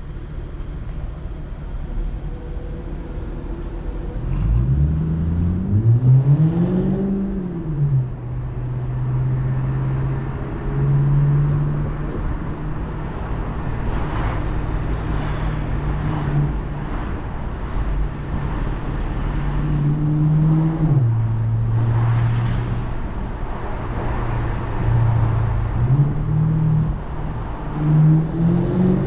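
2010 BMW 650i convertible's V8 engine and exhaust under way: the engine note climbs about five seconds in and drops back at a gear change, then runs steady at cruising revs. It rises and changes again around twenty seconds in and climbs once more near the end.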